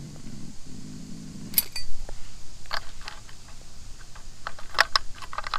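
Steel open-end wrench clinking against the metal fittings of a gauge panel's sender lines as it is worked loose: one sharp clink about one and a half seconds in, then scattered light clicks and ticks. A short low hum comes before the first clink.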